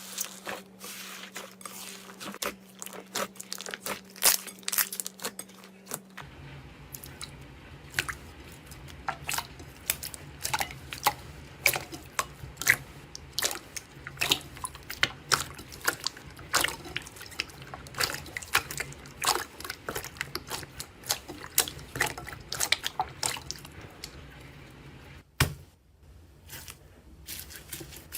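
Hands squeezing and pressing slime, making a steady stream of wet clicks, pops and crackles. A low hum runs underneath for the first six seconds, and the background changes at about six seconds in and again near the end.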